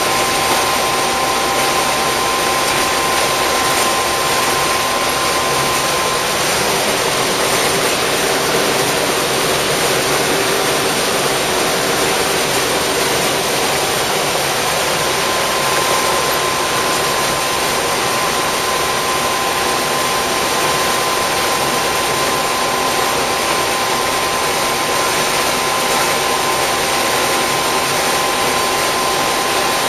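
International Harvester combine running while harvesting corn, heard from inside the cab: a steady rushing drone with a faint high whine that drops out for several seconds midway.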